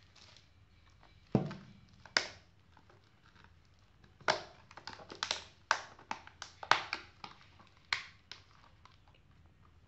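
Sharp crackles and snaps of a thin plastic food tray and its plastic wrapping being handled and prised open by hand: two about a second and two seconds in, then a quick run of a dozen or so from about four to eight seconds in.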